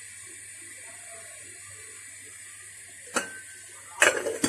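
Covered pot of water, orange and ginger heating on a stove with a faint steady hiss. A sharp click comes about three seconds in and a short clatter near the end.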